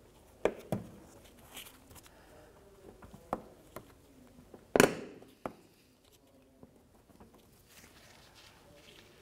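Plastic push clips being pressed into a car's plastic fender liner and splash shield: a handful of sharp clicks and knocks over the first six seconds, the loudest about five seconds in, then only faint handling noise.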